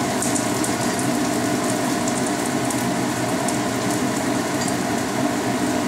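Pan of char siu and chives sizzling steadily with light, scattered crackles, over a steady low hum.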